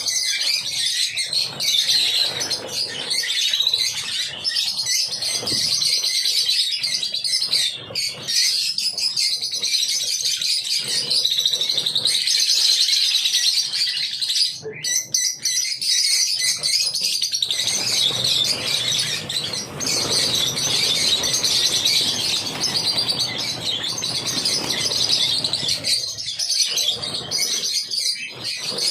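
A large flock of lutino masked lovebirds chattering and chirping nonstop, many high calls overlapping into one continuous din.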